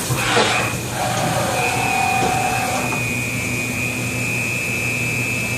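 Fadal 4020 CNC vertical mill running, with a steady high whine. Near the start the whine breaks off for about a second and a half while a pitch falls quickly and a lower tone holds.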